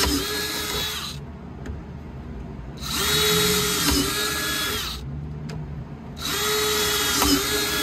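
Cordless drill with an 11/32 bit boring mounting holes through a golf cart's dash, in three separate bursts: one ending about a second in, another about three seconds in, and a third starting near the end. Each run starts with a brief rise in pitch as the motor spins up, then holds a steady whine.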